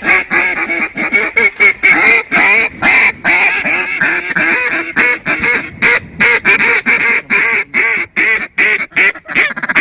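Hand-blown mallard duck calls worked hard in a fast, nearly continuous series of quacks and chatter to turn circling ducks back in.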